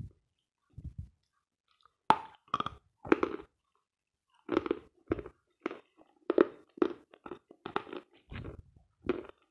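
Dry crunching of edible "Sloyka" chalk: a piece bitten off about two seconds in, then chewed in a run of crunches, about two a second.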